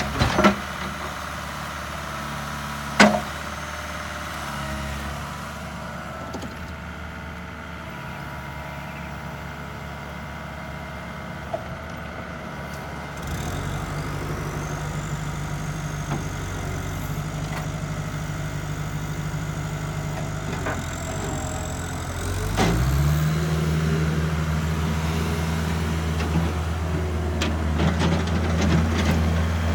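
Bobcat 435 compact excavator's diesel engine running steadily at low speed, picking up about a third of the way in and then revving up to a higher, steady speed about three-quarters of the way through. There are two sharp knocks, one right at the start and another about three seconds in.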